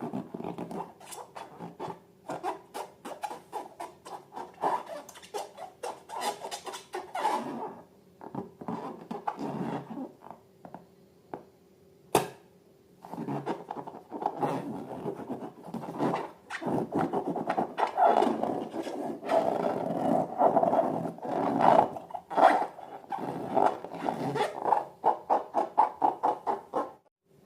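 Slime being worked by hand, making quick, irregular squishing, rubbing and scraping sounds. There is a short lull with a single sharp click about twelve seconds in, and then the working picks up again.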